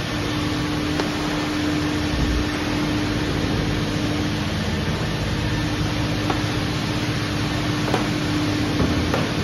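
Steady hum and hiss of self-serve car wash equipment while the foam brush is running, with a few faint clicks. The hum dips out briefly about halfway.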